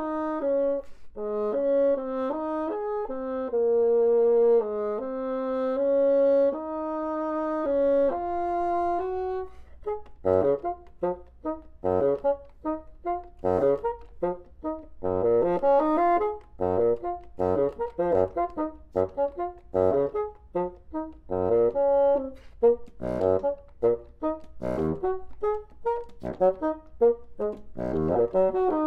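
Solo bassoon playing long held notes, then, about ten seconds in, breaking into a fast passage of short, detached notes with sharp attacks.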